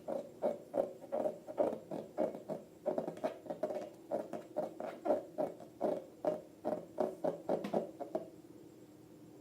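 Slime being worked by hand, giving short wet, sticky squelches in a steady rhythm of about three a second that stop about eight seconds in.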